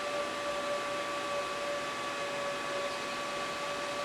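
Hot air rework station blowing steadily: a constant hiss with a steady whine over it, as heat is applied to reflow solder on a laptop charging port's pins.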